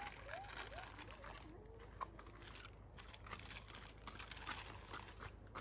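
Faint scattered clicks, crunches and rustles of camping gear being handled at an SUV's open hatch. A few faint, short rising-and-falling voice sounds come in the first two seconds.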